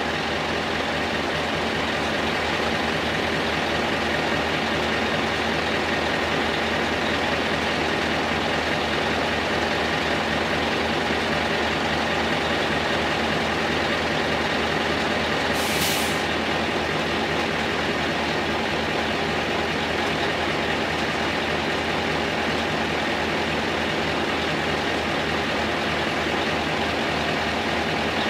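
Scania R620 V8 diesel engine idling steadily through straight standing exhaust pipes. There is one short hiss of compressed air a little past halfway.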